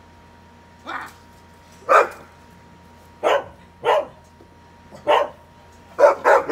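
Dog barking at an animatronic zombie held up in front of it: about seven sharp single barks, roughly a second apart, with two in quick succession near the end. The barking is a frightened dog's alarm at the prop.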